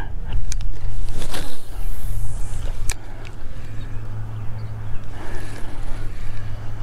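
Low wind rumble on a chest-mounted camera microphone, with the handling noise of casting a spinning rod: small clicks, a brief swish of the cast, and a sharp click about three seconds in as the reel is worked.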